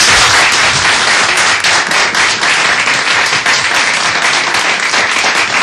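Audience applause: many people clapping in a dense, steady patter.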